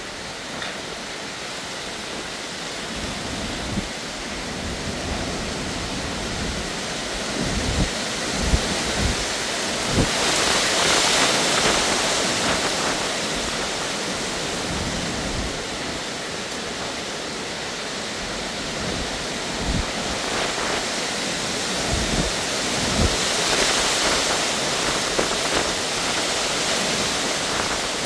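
Heavy hurricane rain pouring down steadily as a dense hiss, swelling louder twice, with occasional low thumps.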